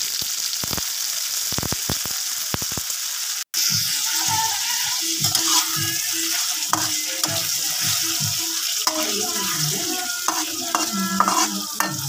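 Diced onion and tomato wedges sizzling in hot oil in a wok, while a metal spatula stirs and scrapes against the pan from about four seconds in. The sound drops out for an instant a little after three seconds in.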